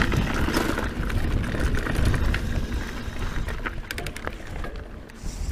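Scott Genius full-suspension mountain bike rolling down rough dirt singletrack: a low rumble of tyres and riding noise, with many short clicks and rattles from the bike and stones. It gets quieter toward the end.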